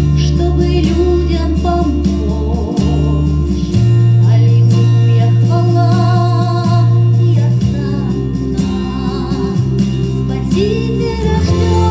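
A Christmas song: singing over an instrumental backing with sustained bass notes.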